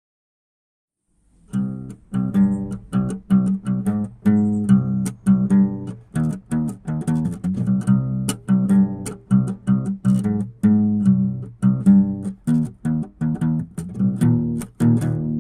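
Instrumental music of quickly plucked string notes in a steady, busy pattern, starting about a second in after a short silence.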